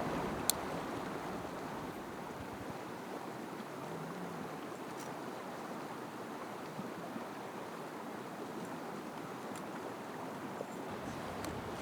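Mountain stream running in a steady, even rush, with a sharp click about half a second in.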